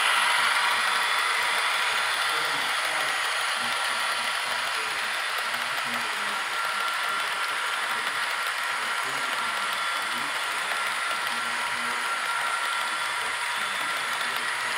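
Model freight cars rolling past on sectional track: a steady rattling clatter of the wheels running over the rails and joints.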